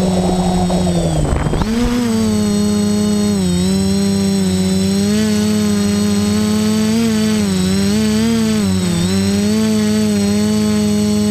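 Quadcopter's electric motors and propellers whining steadily, heard close from the onboard camera, the pitch rising and falling as the throttle changes. About a second in, the pitch dips sharply with a brief rough patch of noise before climbing back.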